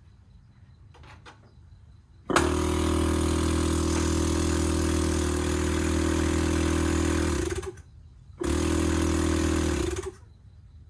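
Viair air-ride compressor switched on and running with a steady buzzing hum for about five seconds, winding down in pitch as it is cut off. It is then run again for about a second and a half and winds down again.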